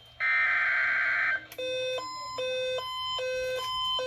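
Emergency alert for a severe thunderstorm warning going off: a buzzy digital data burst lasting about a second, then an alarm tone that alternates between a lower and a higher pitch a little more than twice a second.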